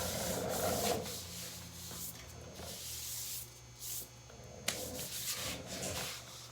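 Rubbing and scraping in several bursts, as the motorcycle's rear wheel and rubber tire are handled and worked free of the bike. A faint steady low hum runs underneath.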